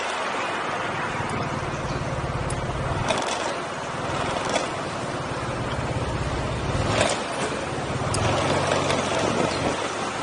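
Motorcycle engine running at low revs while rolling slowly, with a steady low hum over a haze of wind and road noise. The engine note drops away briefly twice.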